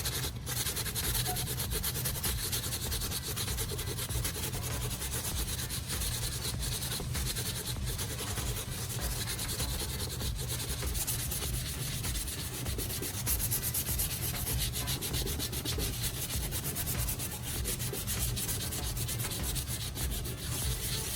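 Sandpaper rubbing back and forth over cured body filler on a plastic casing, hand-sanding the repair smooth: a steady, scratchy rasp of quick strokes.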